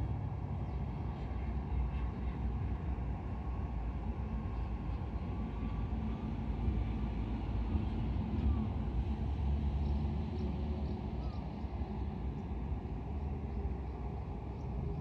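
Orqa Dream X 5-inch FPV quadcopter in steady cruising flight: a continuous rushing sound, mostly low-pitched, from its motors, propellers and the wind, with a faint whine on top.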